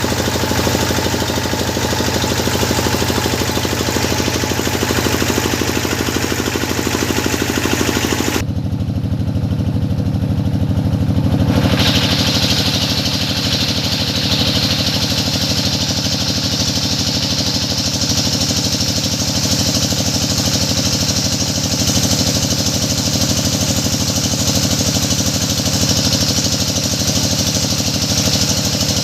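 Engine of a hydraulic deep-well drilling machine running steadily. Its hissing upper noise cuts out abruptly about eight seconds in and comes back stronger some three seconds later.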